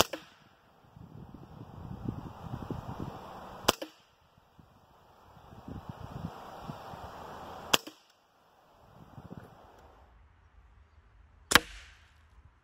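Hatsan Invader Auto .25-calibre semi-automatic PCP air rifle firing four single shots, each a sharp crack, about four seconds apart, the first right at the start and the last the loudest.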